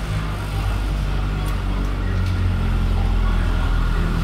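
Motor vehicle engine running steadily, a constant low rumble.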